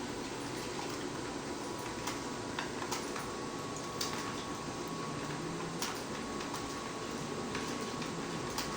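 Steady fan-like hum of a small room with a faint steady tone, broken by a few scattered sharp clicks a second or more apart.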